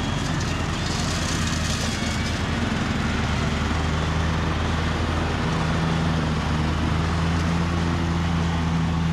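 Lawn mower engine running steadily after being repaired.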